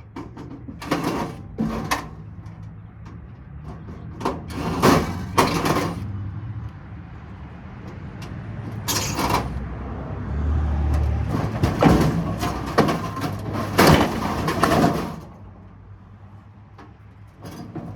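Scrap metal being handled and broken down: a series of sharp metallic knocks and clanks with stretches of scraping, over a low steady rumble.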